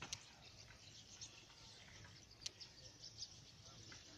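Faint outdoor ambience with scattered short, high bird chirps, and two sharp ticks, one just after the start and one about two and a half seconds in.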